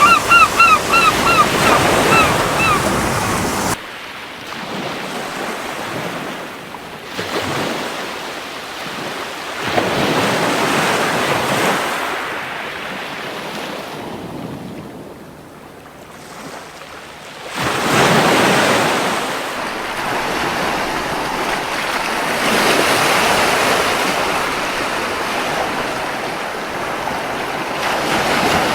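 Ocean surf washing on a beach, waves swelling and falling away in repeated surges. In the first few seconds a gull calls in a quick series of short cries, about three a second.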